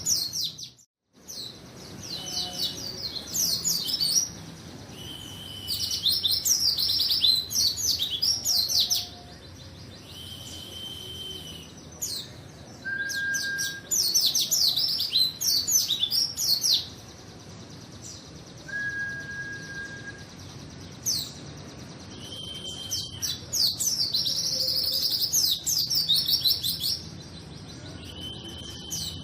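White-eye (pleci) singing in full voice: runs of rapid, high, twittering notes in phrases of a couple of seconds, broken by short pauses, with a few single held whistled notes in between.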